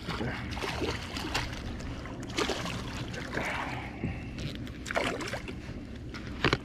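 Boat motor running steadily at trolling speed, with water swishing and splashing along the hull.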